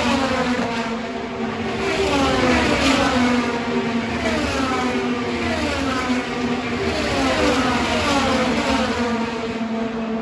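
IndyCar race cars' twin-turbo V6 engines passing at full speed one after another, each engine note falling in pitch as the car goes by, over the steady sound of more cars around the track.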